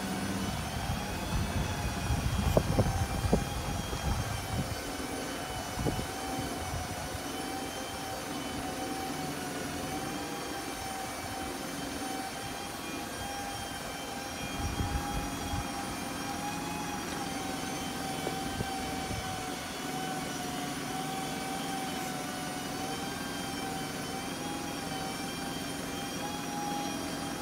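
Mitsubishi Canter's 4M50 diesel running with the hydraulic pump of the Aichi SH09A aerial platform whining steadily as the boom moves, the pitch wavering slightly. A few low thumps come about two to three seconds in and again about fifteen seconds in.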